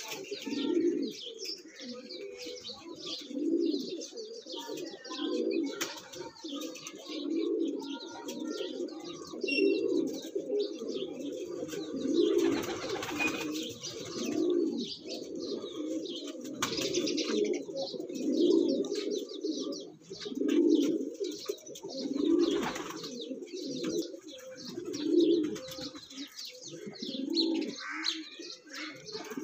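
Male domestic pigeon cooing over and over, a low coo about every two seconds, in courtship display to his hen.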